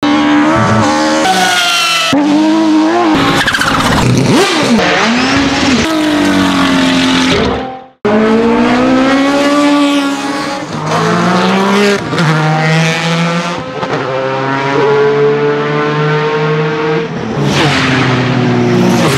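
Race car engines revving in quick cuts, stopping abruptly about eight seconds in. Then the Jaguar XJR-10 Group C car's twin-turbo V6 rising in pitch under acceleration, dropping in several steps as it shifts down, and pulling at a steady pitch near the end.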